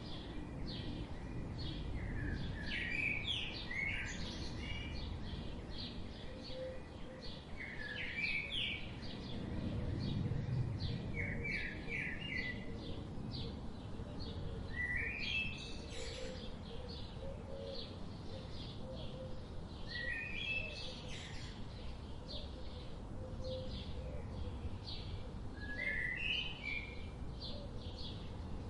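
Birds singing: one bird repeats a short phrase every four to six seconds among many quick higher chirps from others, over a low steady background rumble.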